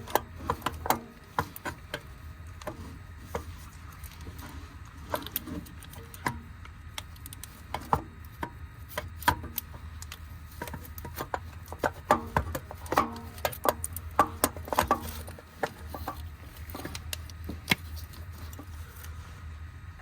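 Irregular clinks and knocks of hand tools and parts as a starter motor is worked loose and manoeuvred out from under a pickup, over a steady low hum.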